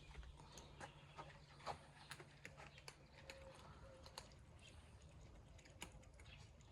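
Cats eating: faint, irregular small clicks of chewing.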